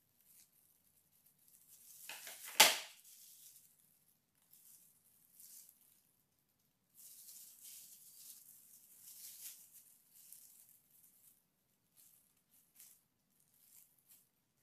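Crinkling of clear plastic gloves and light handling at a table, with one sharp click from a pair of scissors about two and a half seconds in.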